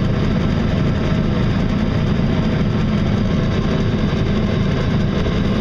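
Boat motor running steadily at speed, turning the propeller shaft, with water rushing past the hull. It is running smoothly with little vibration now that the motor has been realigned with the shaft.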